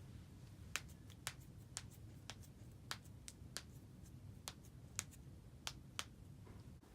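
Spinal joints cracking: a series of about a dozen sharp pops, unevenly spaced, roughly two a second.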